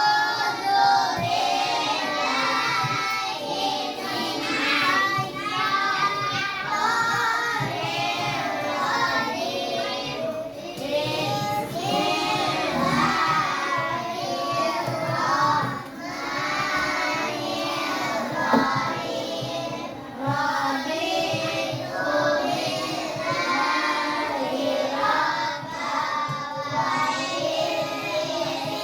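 Children singing a song.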